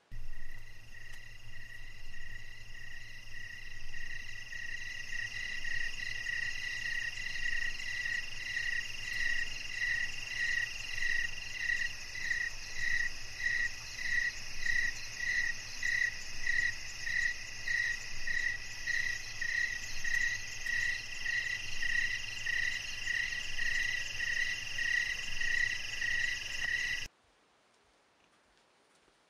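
Night-time outdoor chorus of frogs and insects: a steady high chirring with a call that pulses about one and a half times a second, over a low hum. It starts abruptly and cuts off suddenly near the end.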